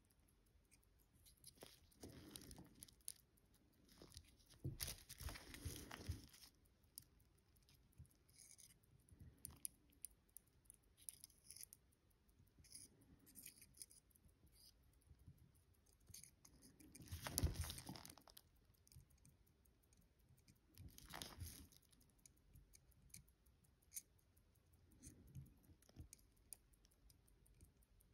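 Near silence with faint, scattered rustles and small clicks from handling at a watchmaker's bench, the loudest cluster about two-thirds of the way through.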